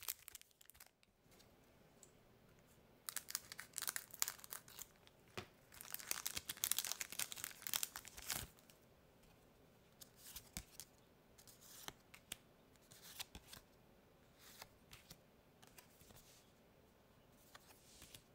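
Wrapper of a Pokémon TCG mini booster pack being torn open and crinkled, in dense rustling bursts from about three seconds in, loudest past the middle. After that come sparse short clicks and slides of the trading cards being handled and laid down.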